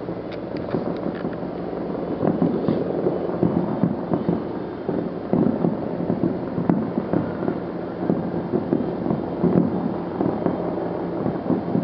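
Fireworks display: a dense run of distant bangs and crackles that thickens and grows louder about two seconds in.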